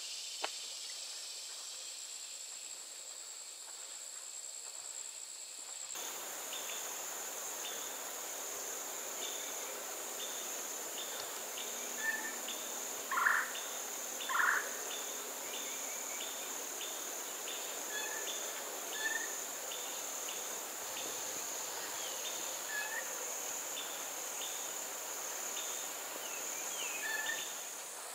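Steady high-pitched drone of an insect chorus, with a string of short repeated chirps over it and two louder short calls about a second apart near the middle.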